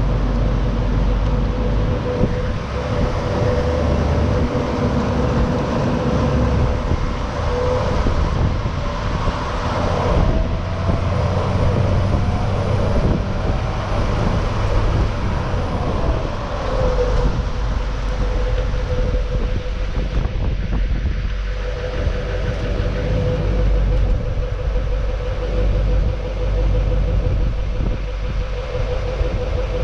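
Duramax LMM 6.6 L V8 turbo-diesel running through its stock exhaust and muffler: a steady deep low-end rumble, with the engine note gliding up and back down around the middle.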